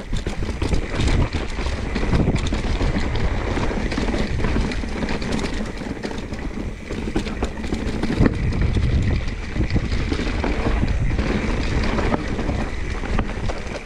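Mountain bike rolling down a rough, technical trail: steady tyre rumble with many rattles and knocks from the bike over the terrain, and wind on the microphone.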